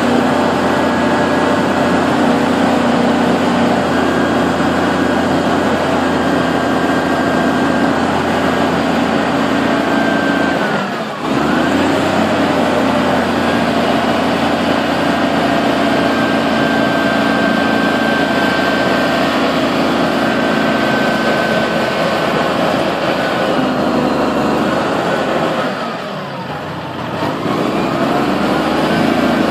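Diesel engine of a Hyster container top loader running steadily, its speed dipping briefly and picking back up about a third of the way in, and again near the end as the machine moves.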